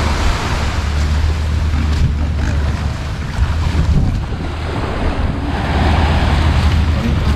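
Small waves washing onto a sandy beach, swelling twice, with wind rumbling on the microphone underneath.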